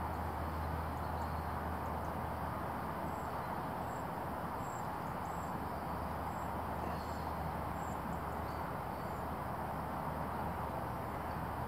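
Steady outdoor background noise with a low hum, and a run of faint, short high chirps in the middle.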